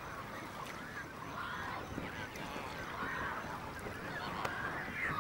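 Large colony of waterbirds calling, with many calls overlapping without a break.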